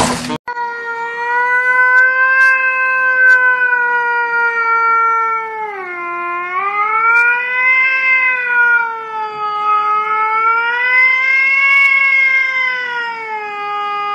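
A Scottish Fold cat yowling in one long, nearly unbroken howl that wavers slowly up and down in pitch like a siren, sinking about six seconds in and rising again.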